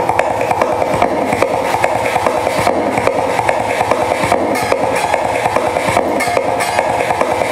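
Live acoustic guitars strummed in a steady rhythm of quick, even strokes.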